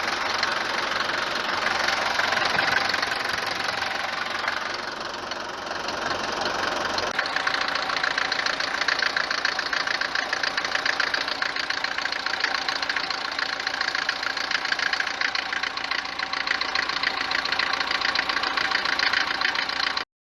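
Mercedes-Benz W124 diesel engine idling with a dense, rapid diesel clatter. The sound shifts a little about seven seconds in.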